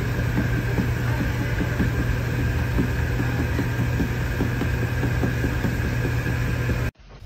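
Steady hum of an electric stall fan running, with faint, irregular small knocks and rustles. It cuts off suddenly near the end.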